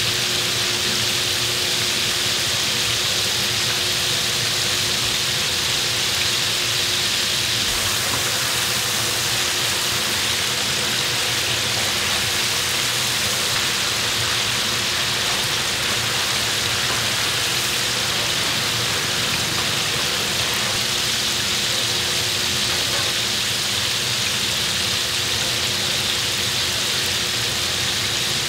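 Battered pork ribs deep-frying in a fryer of hot oil: a steady, rain-like sizzle and bubbling with no breaks, over a steady hum.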